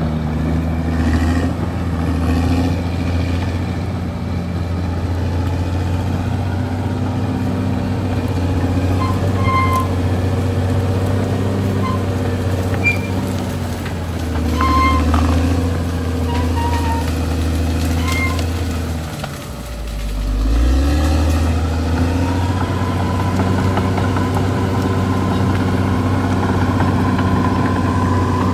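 Caterpillar D6R XL bulldozer's diesel engine running steadily; about two-thirds of the way in its note drops and the sound dips briefly, then it climbs back up and runs on.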